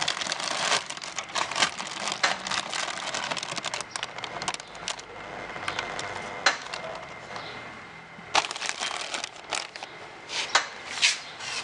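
Clear plastic wrapping sheet crinkling and rustling as it is lifted and handled by hand, with a few sharper crackles in the last few seconds.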